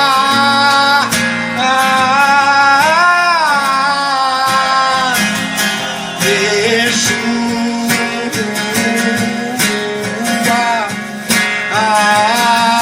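Worship song: strummed acoustic guitar under a sung voice holding long, gliding notes without clear words. The voice drops out for several seconds in the middle and comes back near the end.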